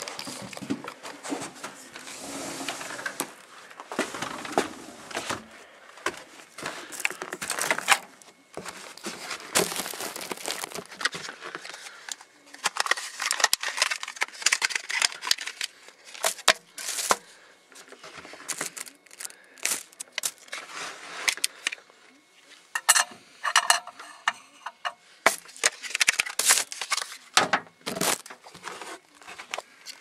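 Irregular handling noise: rustling and scraping, with many short sharp clicks and knocks, as objects and a handheld camera are moved around a microwave oven.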